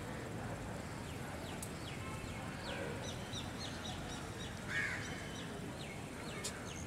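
Birds calling: a run of quick, short, high chirps, with one louder call nearly five seconds in, over steady low background noise.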